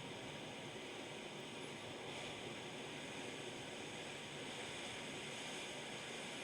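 Hot air rework station blowing a steady, faint hiss of air while a chip is heated for removal from a laptop motherboard. The hiss gets a little stronger about two seconds in.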